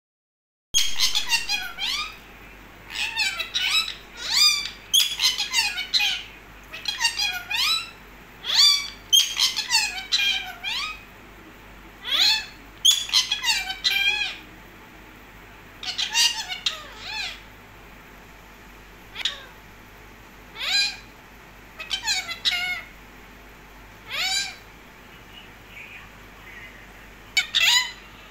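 Pet parakeets, an Alexandrine and a rose-ringed, giving short shrill calls that slide down in pitch. The calls come in clusters every second or two, with short pauses between.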